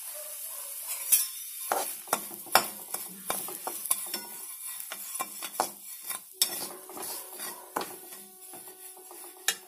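Metal spatula scraping and clicking against a kadai as semolina is stirred and lightly roasted in ghee, with a faint sizzle underneath. The scrapes come irregularly, one every half second or so.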